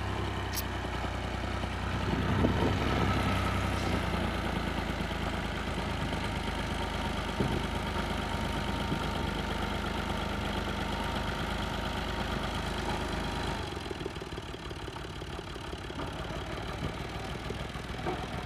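Farm tractor's diesel engine running under load as the tractor works its way through soft sand. It revs up about two seconds in, runs steadily, then drops back at about three-quarters of the way through.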